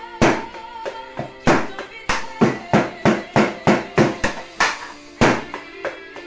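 Sticks striking a homemade drum kit made from paint buckets and discs, in a beat that quickens into a run of about three hits a second in the middle. A recorded pop ballad plays underneath.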